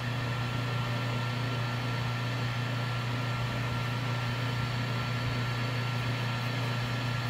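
Small Harbor Freight benchtop lathe's motor running steadily at high speed, spinning the pen blank: a constant low hum with a faint, thin, steady whine above it.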